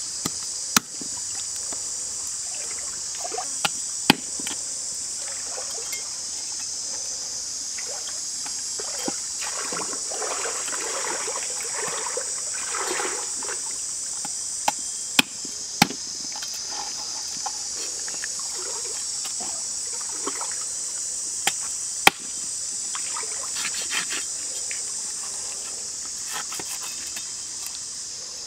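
A big knife chopping through a fish on a wooden board: a handful of sharp, spread-out chops over a steady, high-pitched chorus of insects.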